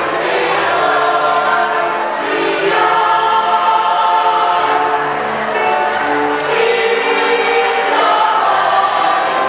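Choir of many voices singing, holding chords that change every second or two.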